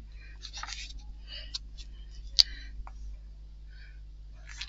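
Soft rustling and light taps of a gel printing plate and paper being handled on a craft mat, with one sharp click about two and a half seconds in.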